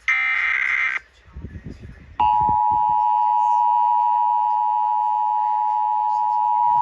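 Emergency Alert System test: a one-second burst of the buzzing SAME digital header data, then about two seconds in the EAS two-tone attention signal starts, a loud steady dual tone that holds.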